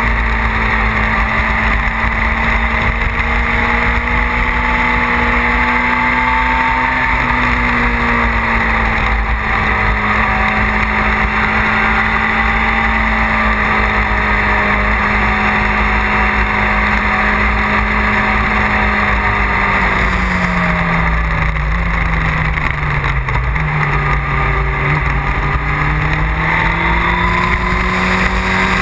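Onboard motorcycle engine running at cruising speed under heavy wind noise. The engine note holds steady, falls away about two-thirds of the way through as the bike slows, then climbs again near the end.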